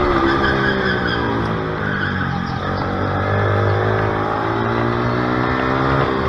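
Go-kart and pit bike engines running hard through corners, revving up and down. Two engine pitches overlap as they rise and fall.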